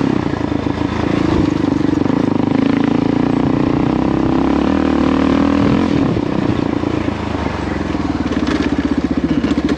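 Kawasaki KLR650's single-cylinder four-stroke engine running under way, steady, then easing off about seven seconds in to a slower, pulsing beat.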